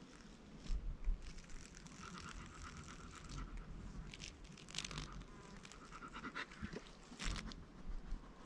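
A dog panting faintly in a few short bouts, with a low bump about a second in.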